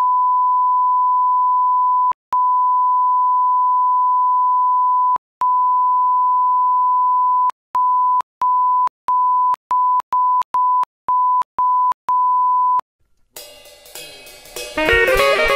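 A 1 kHz colour-bar test tone, a single steady pitch, in three long stretches that then break into short beeps coming faster, about two a second. The tone cuts off about 13 seconds in, and music fades in near the end.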